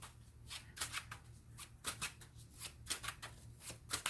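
A deck of tarot cards being shuffled by hand: a run of short, soft papery strokes coming a few times a second, unevenly spaced.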